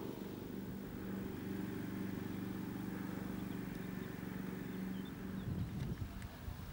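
A motor running steadily, a low hum that fades out about five seconds in, followed by irregular low rumbling.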